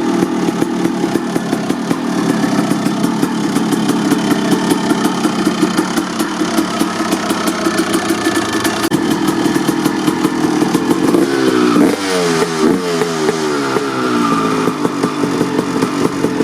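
1989 Honda CR250R's single-cylinder two-stroke engine, breathing through an FMF Gnarly expansion pipe and Pro Circuit R-304 Shorty silencer, runs at a steady, rattly idle while warming up from a cold start. About two-thirds of the way in, the rider starts blipping the throttle, so the engine note repeatedly climbs and drops.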